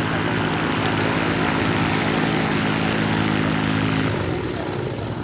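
SkyCycle weight-shift ultralight trike's pusher engine and propeller running steadily as the trike taxis past. The engine tone drops away suddenly about four seconds in.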